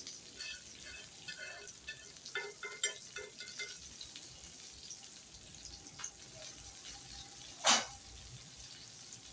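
Two whole fish shallow-frying in oil in a cast-iron pan: a steady low sizzle with scattered crackles over the first few seconds. One short, louder sound comes near the end.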